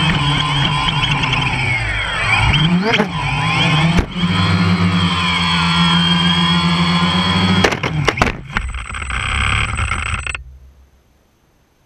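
A DJI Phantom quadcopter's motors and propellers whine loudly, the pitch sliding up and down as it flies. There is a sharp knock about four seconds in and a cluster of knocks around eight seconds in as the drone crashes into the grass. Near the end the motors cut out abruptly, leaving near silence.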